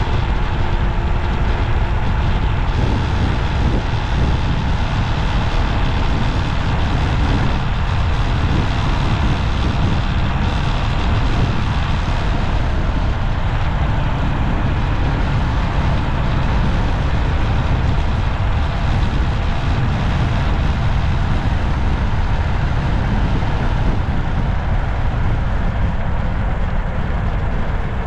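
Steady road noise of a vehicle driving along a city street, with a heavy, even low rumble and passing traffic.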